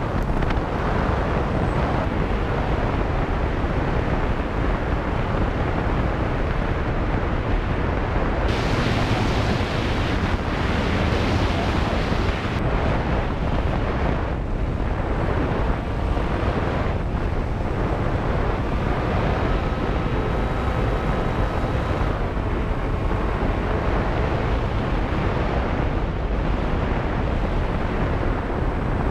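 Airstream rushing over the microphone of a camera riding on an RC plane in flight, a steady loud rush. A faint steady whine, from the plane's electric motor and propeller, shows through for a few seconds past the middle.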